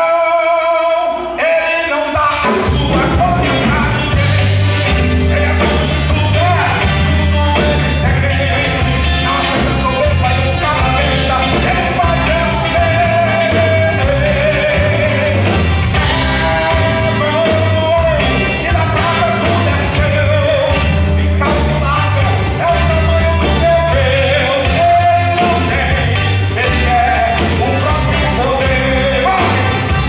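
A live Christian band of electric guitar, bass, keyboard and drum kit playing a rock-style song under a singing voice. The drums and bass come in about two seconds in, after which a steady beat runs on.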